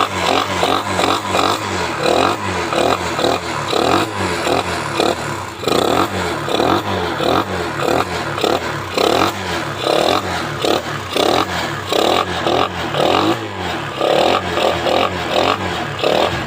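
Motorcycle engine running loudly through its exhaust, the sound surging and easing in a steady rhythm about twice a second.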